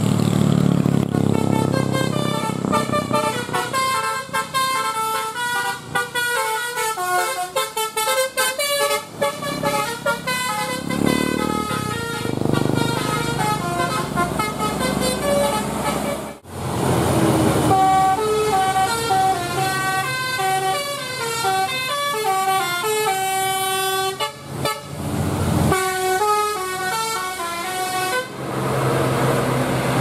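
Basuri telolet bus horns playing fast melodic tunes: quick runs of short horn notes stepping up and down in pitch, over bus engine and traffic noise. The sound breaks off suddenly a few times, once about halfway through, and a new horn tune starts after each break.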